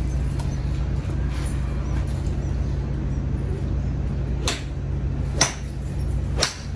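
Three sharp clicks of golf balls being struck, about a second apart; the last is the golfer's own iron hitting the ball off the range mat. A steady low hum runs underneath.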